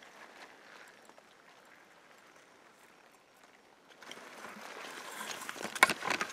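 Faint forest background, then rustling and handling noise from about four seconds in as the handheld camera is swung around, with a few sharp clicks and knocks near the end.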